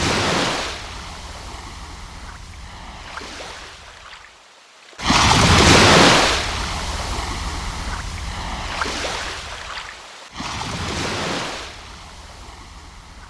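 Pacific Ocean surf: waves washing in and out in swells, loudest about five seconds in, with two brief sudden dropouts in the sound.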